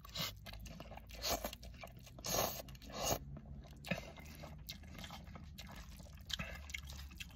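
A person slurping and chewing a mouthful of instant ramen noodles: several short slurps in the first four seconds, then quieter chewing.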